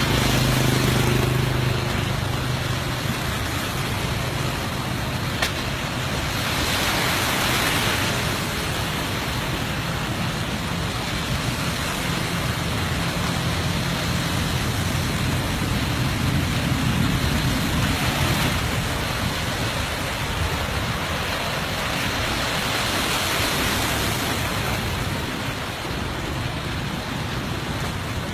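Road traffic with a steady, even hiss. A vehicle engine hum is strongest in the first couple of seconds.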